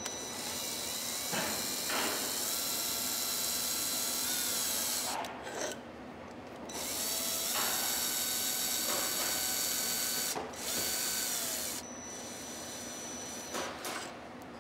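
Cordless power drill/driver running in long runs of several seconds with a steady whine, driving in the screws that hold a gasketed cover onto a steel octagon box, with short pauses between runs.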